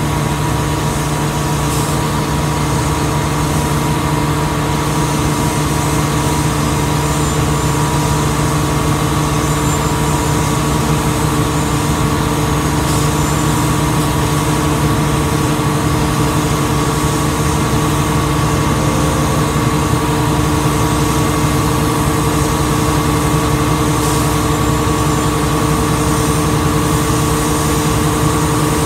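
Concrete mixer truck in a drive-through truck wash: a steady, unchanging engine drone with a constant hum over a hiss of spraying water.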